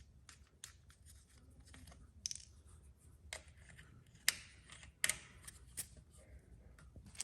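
Faint, irregular sharp clicks and ticks of a small cap-type TPMS sensor being handled and screwed onto a tire's valve stem, the loudest about four and five seconds in.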